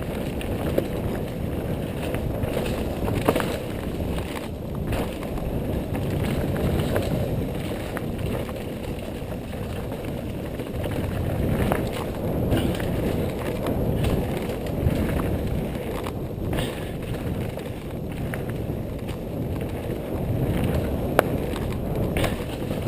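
Mountain bike descending a dirt trail at speed: wind rushing on the microphone and tyres rumbling over the ground, with scattered clicks and rattles from the bike over bumps.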